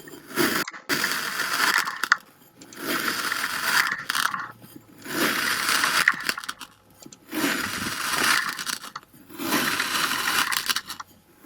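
Kinetic sand being cut and crushed: a crunchy, gritty scraping that comes in about five bursts of a second or two each, with short pauses between them.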